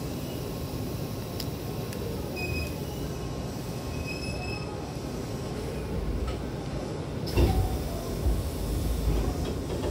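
Hankyu train rumbling as it slows to a stop, with a few short high squeals from the wheels and brakes. About seven seconds in, the passenger sliding doors start to open with a sudden loud burst of sound, followed by a couple of smaller jolts.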